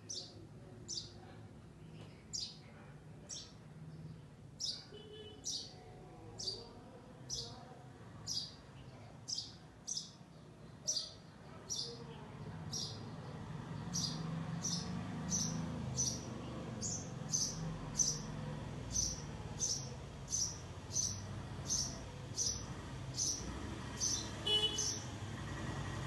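House sparrow chirping in a long, regular series of short, high chirps, about one a second at first and quickening to about two a second in the second half. A low background rumble underneath grows louder about halfway through.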